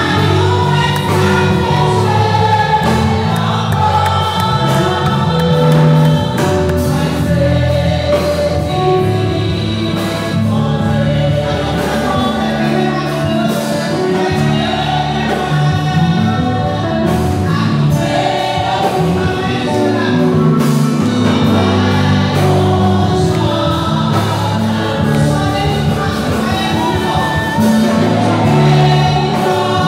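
Gospel worship song: women singing through the church's loudspeakers, with voices joining in like a choir over an accompaniment of steady, changing bass notes.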